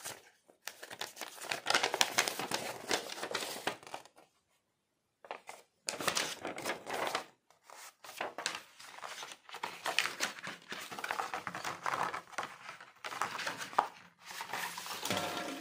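Paper instruction manual rustling and crinkling as it is handled and unfolded, in irregular bursts with a brief silent pause about four seconds in. Near the end, clear plastic packaging crinkles as it is picked up.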